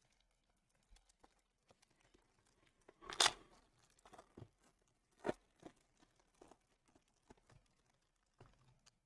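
Foil trading-card pack being ripped open and crinkled: one loud tear about three seconds in, a shorter sharp rip about two seconds later, and light crinkling of the foil around them.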